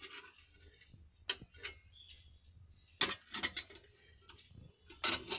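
A metal spoon clinking and knocking against a metal pan in a few short clusters, the loudest clatter near the end, as fried rasgulle are scooped and moved.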